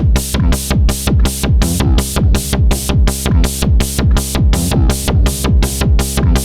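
Electronic bass drum and hi-hat beat: a synthesized kick with a quick falling pitch and a hi-hat ticking about four times a second, over a steady low synth tone.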